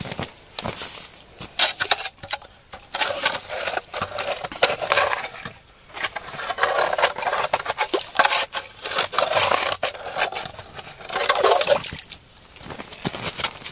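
Knife blade scraping and chipping at ice and slush on the edge of an ice-fishing hole, cutting it wider to bring a large fish through. It comes in several bouts of rough scraping and crunching, full of sharp clicks.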